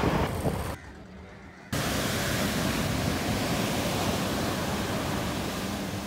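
Traffic noise at first, then a sudden drop to quiet. From about two seconds in, a steady rush of surf breaking on a sandy beach, with a faint low hum from a small fishing boat's motor under it.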